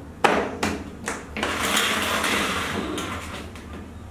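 A plastic thermos flask knocking several times in the first second as it is capped and set down, then water sloshing as a hand swishes through a plastic basin.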